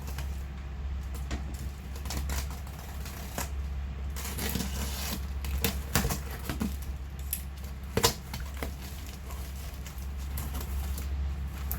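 Cardboard parcel being opened by hand: irregular crackling, rustling and sharp clicks of tape and cardboard flaps, with the loudest knock about eight seconds in. A steady low hum runs underneath.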